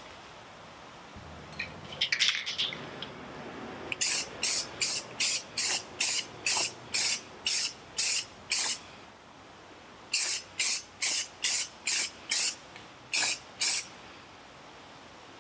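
Aerosol can of Rust-Oleum primer sprayed in quick short bursts, about two to three hisses a second, in two runs with a pause between and a final pair near the end: light coats being put on a taillight housing. A brief clatter of clicks about two seconds in, before the spraying starts.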